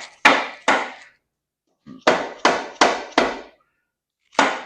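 Dead blow hammer striking the end of a small-block Chevy crankshaft, knocking it back and forth in the block to seat and align the thrust main bearing before the main caps are torqued. Seven sharp blows in quick groups: two, then four, then one more near the end.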